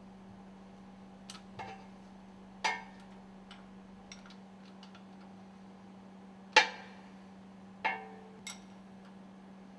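Metal tools and bolts clinking and tapping while the bolts of the stuffing box assembly are removed: about eight separate sharp clinks with a short ring, two of them much louder. A steady low hum runs underneath.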